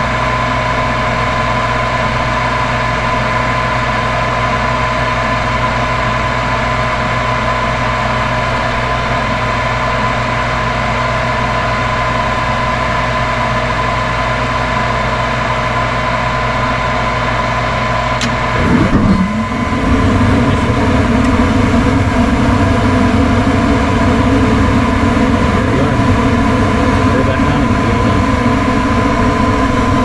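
Gas furnace inducer motor running with a steady hum while the hot surface igniter heats. About 18 seconds in there is a faint click, then the gas burners light and a louder low rumble of burning gas joins the hum and carries on: the newly replaced igniter has lit the furnace.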